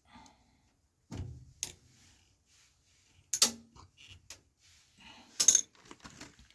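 Hand tools being handled: a few sharp metallic knocks and clicks with light rattling between them, the loudest two about three and a half and five and a half seconds in.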